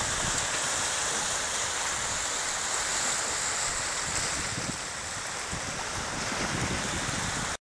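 Small sea waves breaking and washing over rocks, with wind rumbling on the microphone. It cuts off suddenly near the end.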